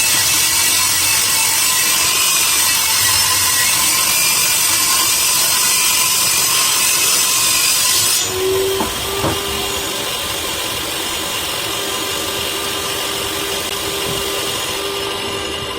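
Electric power tool working wood, making a loud, hissing noise. About eight seconds in the noise drops away, leaving a steady hum with a couple of knocks.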